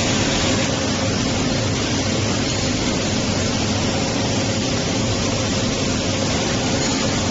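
Industrial fans and machinery running: a steady, even rush of moving air with a faint steady hum underneath.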